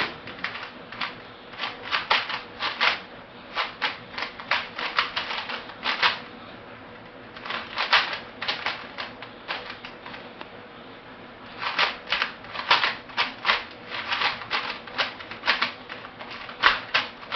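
Layers of a 3x3 Rubik's cube being turned fast by hand: rapid plastic clicking and clacking in flurries, with two short lulls in the middle.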